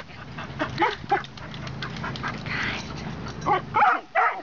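Dogs giving short yips and barks, a cluster about a second in and another near the end, over a steady low hum.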